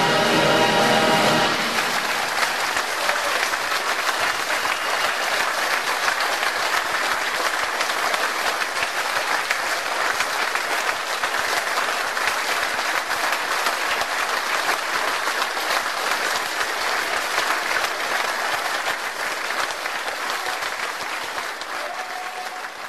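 A brass band's final held chord cuts off about a second and a half in, followed by sustained audience applause that fades out near the end.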